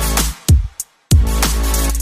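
Electronic dance music with heavy bass and sharp drum hits. It cuts out briefly about a second in and starts again.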